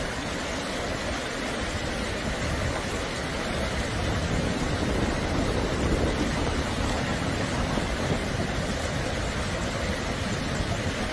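Fast-flowing mountain creek rushing over a rocky bed, a steady roar of moving water.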